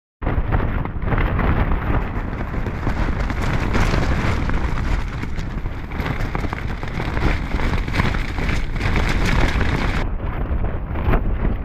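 Storm wind buffeting a small tent from the inside, its fabric flapping and cracking with the gusts while wind rumbles on the microphone.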